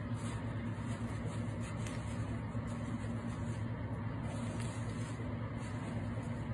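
Steady low mechanical hum, with a few faint brief rustles.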